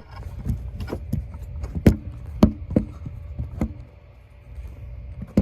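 A series of separate knocks and clatters, about eight over a few seconds, as hard objects are handled and set down while a camera and an alarm clock are repositioned.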